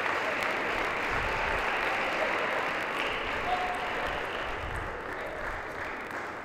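Spectators applauding in a sports hall after a point in a table tennis match, the applause fading away gradually.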